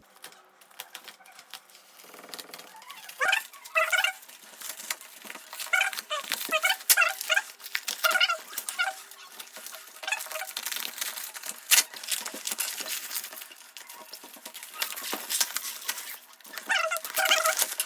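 A cardboard parcel being pried and torn open by hand: crackling, clicking and tearing of cardboard and tape, with clusters of short, repeated squeaks.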